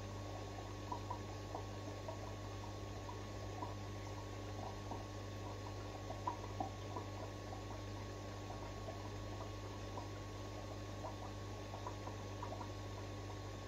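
Aquarium running sounds: a steady low hum under a light, irregular crackle of small water pops and ticks, like bubbling water.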